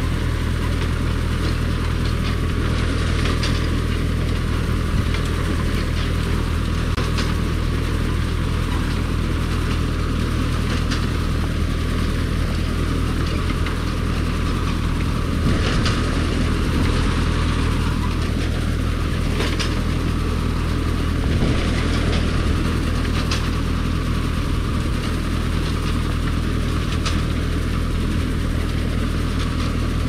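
Tractor engine running steadily while pulling a McCormick-Deering grain binder through standing wheat, with the binder's mechanism clattering throughout and a sharper clack about every four seconds.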